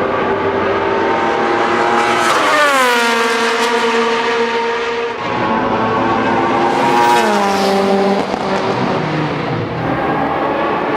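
Historic racing cars passing at speed on a straight, engines at full throttle. The engine note drops sharply as a car goes by about two seconds in, and again about seven seconds in, over the continuous sound of other cars.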